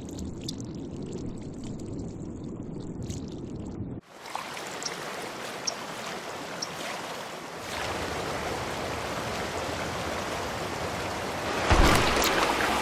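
Sound-effect water: a low rushing that cuts off abruptly about four seconds in, giving way to a flowing, trickling hiss with a few small drips, which grows louder with some thumps near the end.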